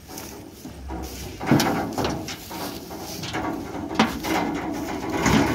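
Irregular knocks and clatter from the bed and gate of a small goods truck as a Murrah buffalo heifer is untied and led off it, with a few sharp bangs about a second and a half in, again at two seconds, and at four seconds.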